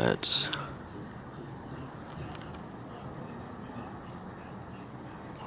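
Crickets chirping in a steady, fast, evenly pulsing trill, with a brief louder noise just at the start.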